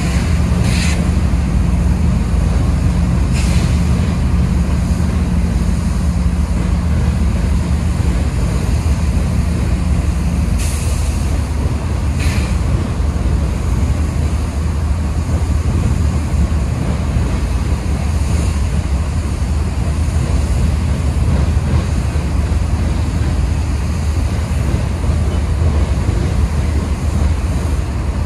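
Freight train of loaded hopper cars rolling past: a steady, loud rumble of wheels on rail, broken by a few brief high-pitched hisses or squeals.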